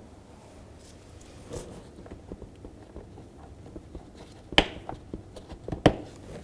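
Plastic door-panel retaining clips being pressed into a car door trim panel: light handling ticks, then two sharp snaps about a second apart as the clips seat.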